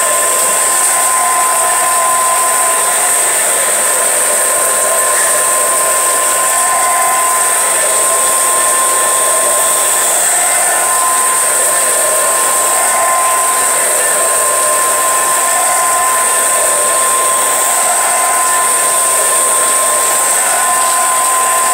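Handheld hair dryer running steadily as it blows on hair, an even rush of air with a constant whine.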